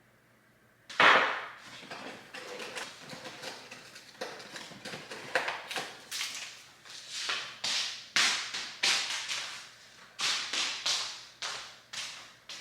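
Handling noises: a loud knock about a second in, then a run of irregular knocks, clicks and short swishes.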